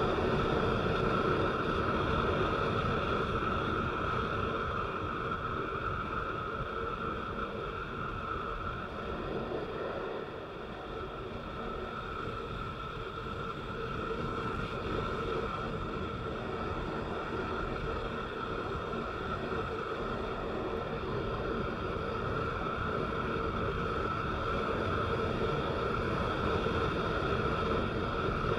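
A vehicle driving on a rain-wet road: steady engine drone and tyre noise, easing off a little about ten seconds in and slowly building again.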